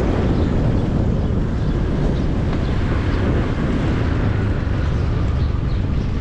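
Loud, steady wind rushing over the microphone with a motorbike running underneath, as the bike is ridden along.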